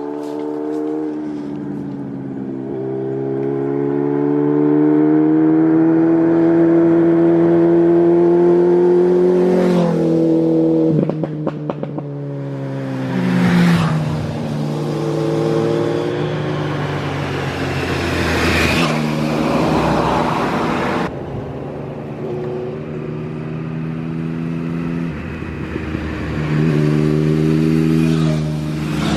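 Superbike engines running and revving, the pitch climbing and falling in long held revs, with a few short crackles partway through.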